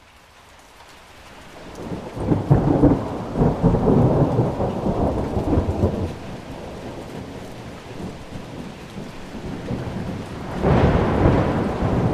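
Heavy rain fading in, with two rolls of thunder: one rumbles for about four seconds starting about two seconds in, and a second starts near the end.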